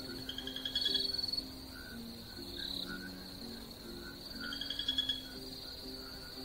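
Night chorus of insects and frogs: a steady high insect trill throughout, with two louder bursts of rapid pulsed calls, one about a second in and one about five seconds in.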